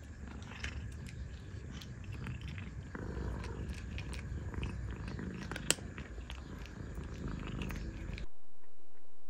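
Grey kitten crunching dry kibble, many small crisp crunches with one sharper crack a little before six seconds in, over a low steady rumble. The sound cuts off abruptly about eight seconds in.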